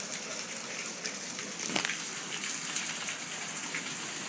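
Heavy, wind-driven hurricane rain hissing and spattering on wet pavement, with one sharp tap a little under two seconds in.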